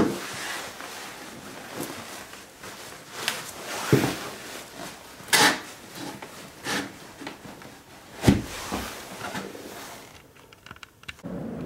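Irregular knocks, thumps and rustling from someone handling boots and gear and moving about, with a handful of sharp knocks spread through. Near the end a steady low rushing sound takes over the background.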